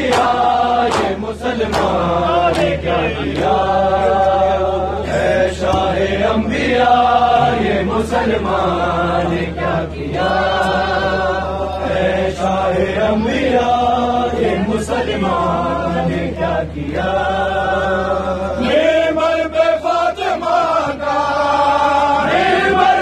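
A crowd of men chanting an Urdu noha (mourning lament) in unison, with sharp hand slaps on bare chests (matam) keeping a steady beat.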